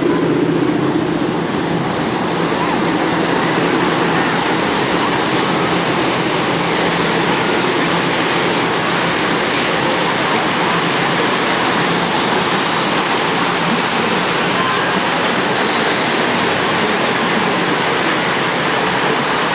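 Steady rushing noise throughout, with a low engine drone fading out in the first second.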